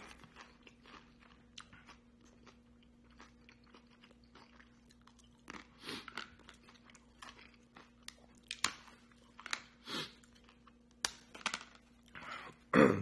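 A person chewing and crunching a crisp fried tostada topped with fish ceviche: scattered soft mouth clicks and crunches, a few louder bites after the middle, and a short hummed "mm" near the end.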